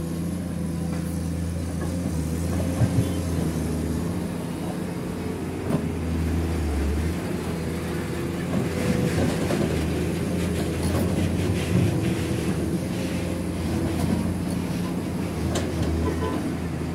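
Komatsu PC210 hydraulic excavator's diesel engine running under digging load, its pitch shifting as the hydraulics work. Scattered clatter and scraping of stones and soil as the bucket digs, busier in the second half.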